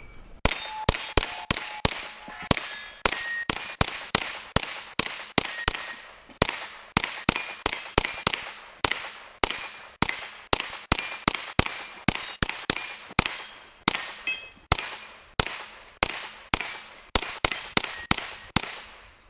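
Suppressed KelTec Sub2000 Gen 2 pistol-calibre carbine fired in a fast, steady string of shots, about two to three a second, with steel targets ringing briefly after hits. The string begins about half a second in and stops shortly before the end.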